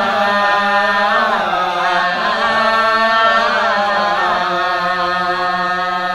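A man's solo voice chanting a line of a Malay hikayat (syair) in a slow, drawn-out melody through a microphone. The held notes waver and curl in ornamented turns.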